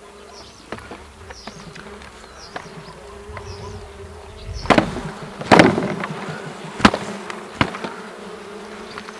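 Honeybee colony in an open hive, humming steadily. Several sharp knocks and clacks come in the second half, the loudest two near the middle, typical of hive frames or parts being handled.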